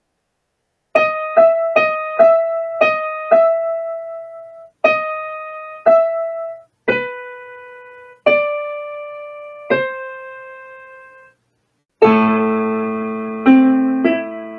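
Piano music: a slow melody of single notes, each ringing out and fading, starting about a second in, then a short pause and fuller chords near the end.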